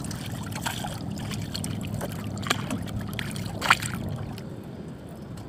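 Paddling a small outrigger canoe: steady water lapping and paddle strokes, with two short knocks, about halfway and about two-thirds of the way through, the second louder.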